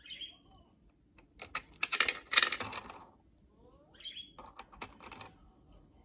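A budgerigar gives short chirps near the start and again about four seconds in. Between them come rapid runs of clicking and rattling from its beak on the hard plastic pieces of a Playmobil food-truck toy, loudest about two to three seconds in.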